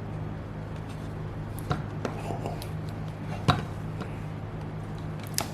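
A few sharp clicks and knocks of small objects being handled, the loudest about three and a half seconds in, over a steady low electrical hum.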